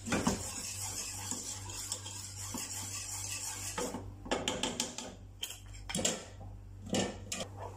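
A wooden spoon stirring and scraping a thick flour-and-sugar mixture in a cooking pot, kept going without pause so the mixture does not form lumps, with clusters of knocks and scrapes against the pot around the middle and near the end. A steady low hum runs underneath.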